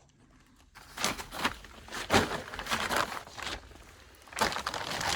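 Irregular scuffing and rustling of someone moving over the ground, starting about a second in after a near-silent moment.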